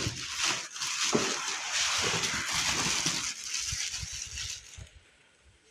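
Packaging rustling and crinkling with small knocks as a power saw is handled and unwrapped from its box; it dies away about five seconds in.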